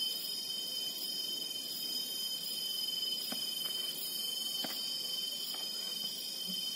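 Steady, unbroken high-pitched insect trilling. A few faint, soft taps come from hands working dough in a metal bowl.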